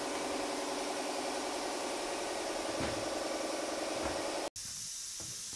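Small Helkama fridge running with a steady mechanical hum, with a couple of soft knocks as its door is handled and opened. The sound cuts off abruptly near the end.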